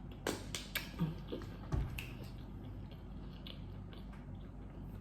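Close-miked eating mouth sounds: a handful of wet clicks and smacks from chewing and the lips in the first two seconds or so, then only faint room tone.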